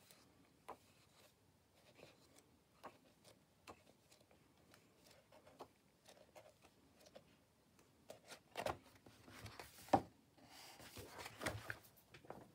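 Pages of a large illustrated book being turned by hand: faint paper rustles and soft taps. Louder rustling comes in near the end, with a single sharp thump about ten seconds in as the book is handled and put down.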